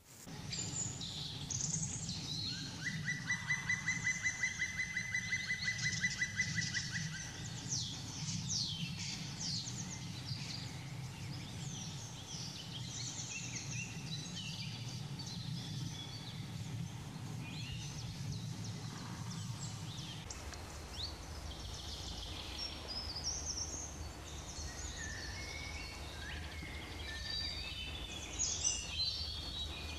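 Woodland birdsong: several birds calling and singing, with one fast, even trill from about three to seven seconds in, over a steady low background rumble.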